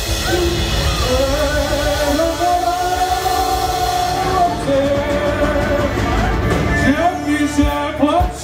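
Live polka band playing, with long held melody notes and singing over a steady bass line, and drum hits coming back in near the end.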